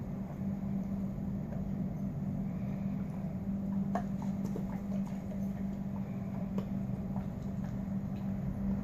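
Alaskan Malamute gnawing a chew treat held between its paws: scattered small clicks and crunches, mostly from about four seconds in, over a steady low hum.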